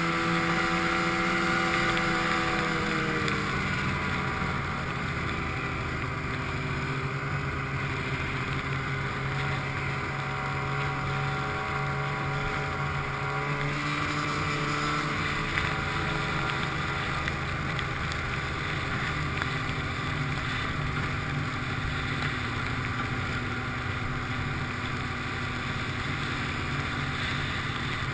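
Snowmobile engine running steadily while riding, its pitch dropping a little a few seconds in and shifting again about halfway through.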